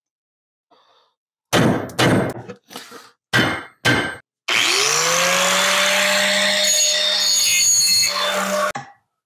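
About six hammer blows on a punch, trying to drive a stuck 70-year-old kingpin wedge pin out of a 1955 Buick Special front spindle. Then a small electric power tool spins up with a rising whine and runs steadily for about four seconds before cutting off.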